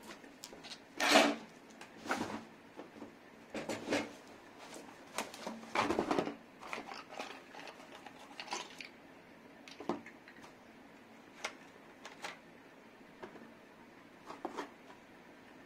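Bubble wrap and cardboard packaging rustling and crinkling in irregular bursts as a gas stove and its accessories are unpacked by hand, with scattered sharp clicks and knocks. The loudest rustles come about a second in and around six seconds in.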